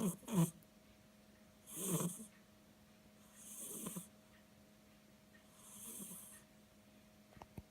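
A sleeping cat breathing and softly snoring, one breath about every two seconds. The first breaths are short and sharper, the later ones softer and drawn out, with a couple of faint ticks near the end.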